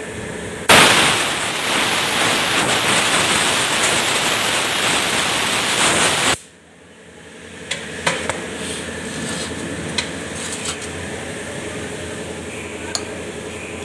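Compressed-air blow gun blasting a steady, loud hiss for about six seconds, starting and cutting off abruptly. A few faint clicks and taps follow.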